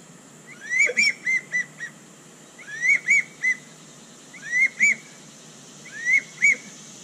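Polk Pattern Calls 5-in-1 duck whistle blown as a wigeon call: four short series of clear whistled notes, each series of two to a few notes that swoop up and drop off, starting high and dropping low in the manner of a drake wigeon's whistle.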